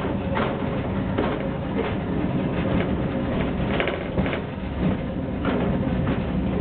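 Miniature Shinkansen ride train running along its track: a steady rumble from the wheels and running gear, with irregular clicks and knocks from the wheels on the rails.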